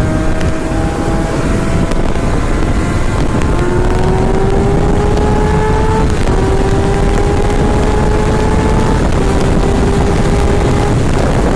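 Kawasaki ZX-6R inline-four engine running at highway speed through an M4 Street Slayer slip-on exhaust with its baffle in, the engine pitch climbing slowly with a few small steps. Heavy wind noise on the helmet microphone runs under it.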